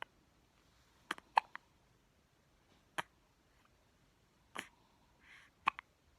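A two-week-old baby hiccuping: about half a dozen short, sharp hiccups, some in quick pairs, spaced a second or so apart.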